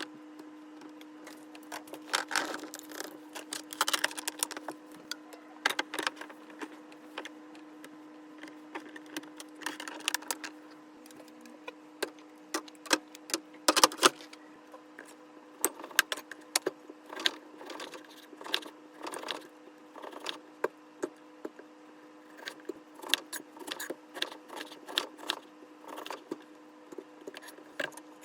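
Irregular clinks, taps and knocks of containers and jars being handled and set down, over a steady low hum.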